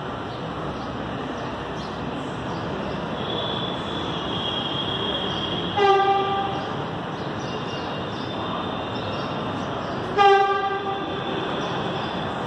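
Train horn sounding twice, two short pitched blasts about four seconds apart, over a steady background rumble, with a thin high whine coming and going between them.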